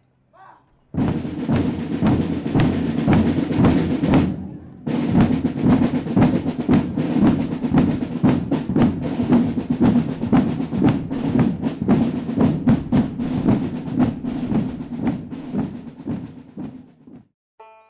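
Loud, rapid drum percussion, dense rolling drumbeats that break off for a moment about four seconds in and stop about a second before the end.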